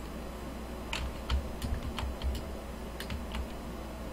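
Computer keyboard and mouse clicking: a run of about ten quick, irregular clicks starting about a second in, over a steady low hum.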